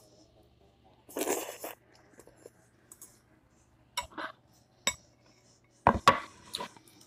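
Metal spoon and fork clinking and scraping against a glass bowl and glass plate while eating greens. There is a short noisy stretch about a second in, then about half a dozen sharp clinks in the second half.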